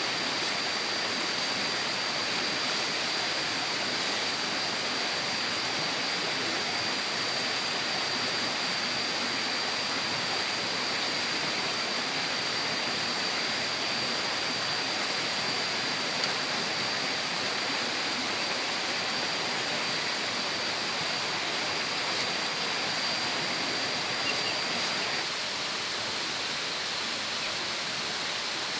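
Steady rushing noise of running water, with a thin, steady high-pitched whine over it that stops a few seconds before the end.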